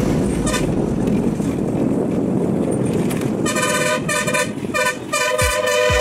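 Engine and road noise from a moving bus heard through an open window, then a vehicle horn honking in a quick run of about five short blasts, starting about three and a half seconds in.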